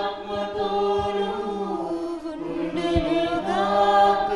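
A small group of women singing the congregation's response to the priest's greeting at Mass, in unison with long held notes. A steady low note sounds underneath.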